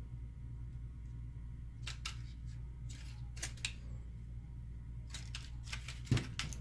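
Scattered plastic clicks, taps and rattles from a Western Electric Trimline phone handset's plastic shell and internal parts being handled and pressed into its brackets, with a sharper knock about six seconds in. A steady low hum runs underneath.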